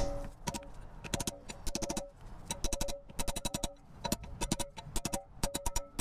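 Rapid, light hammer taps on a steel plate, driving the inner hub seal evenly into the wheel hub through the old bearing race, with a short metallic ring after the strikes.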